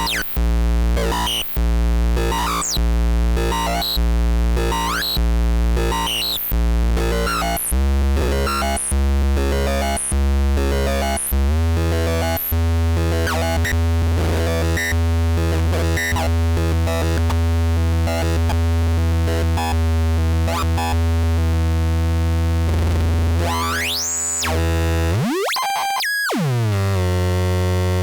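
Live electronic noise performance: a low synthesizer-like drone pulsing about one and a half times a second, with high gliding chirps over it, then settling into a steady layered drone. Near the end a fast sweep rises and falls and the sound briefly cuts out before the drone returns.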